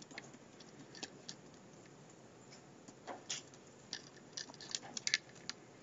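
Computer keyboard typing: faint key clicks in short irregular runs, busiest in the second half.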